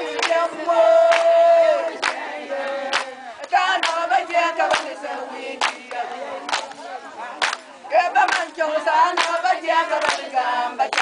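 A group of women singing together in a celebratory chant, with rhythmic handclapping about once a second.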